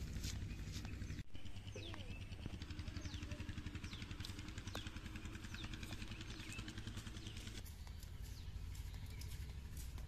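Outdoor village ambience: birds chirping over a steady low rumble. The sound drops out for an instant about a second in.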